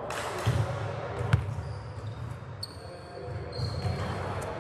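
A basketball bouncing on a gym floor: two thuds about a second apart, the second one sharp. Later there is a thin high squeal, over the general hubbub of the gym.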